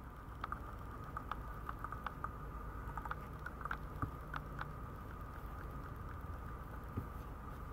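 Newborn Maltese puppies crawling on a vinyl mat: irregular small clicks and scratches of their paws and claws, over a faint steady hum.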